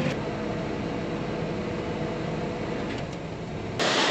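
Steady drone inside a tractor cab while planting: engine and cab fan noise with a faint steady hum. Near the end it cuts suddenly to a louder, steady hiss.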